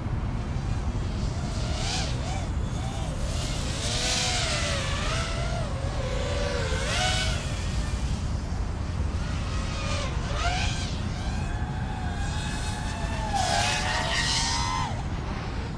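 Racing quadcopter's Foxeer Datura 2206 2700kv brushless motors whining on 5-inch props in flight, the pitch swooping up and down with the throttle and climbing sharply a few times. Wind rumbles on the microphone underneath.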